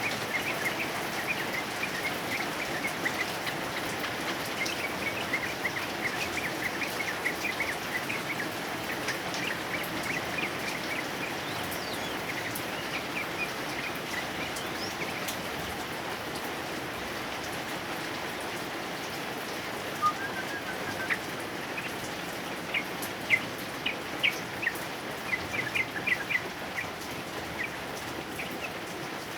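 Steady heavy rain with a male yellow-vented bulbul (trucukan) singing over it: quick runs of short chirping notes through the first third, fading back, then scattered sharper notes from about two-thirds in.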